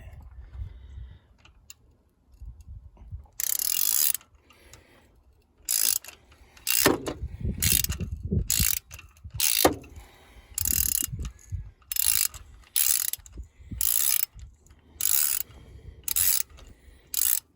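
Stubby 3/8-inch ratchet clicking in short bursts, about one a second, as it backs a loosened spark plug out of the engine.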